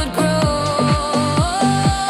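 AI-generated electronic dance song: a fast, steady kick drum, each beat dropping in pitch, under a long held melody line.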